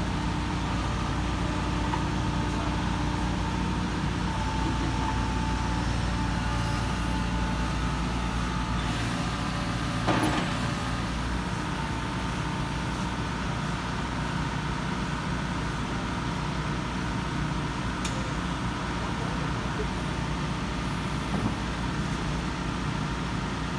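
Volvo EC55D mini excavator's diesel engine running steadily while its hydraulics move the boom and arm, with a brief knock about ten seconds in.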